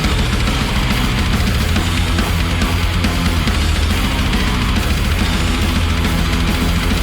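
Sludge metal song playing: heavy distorted guitars and bass holding low riffs over drums.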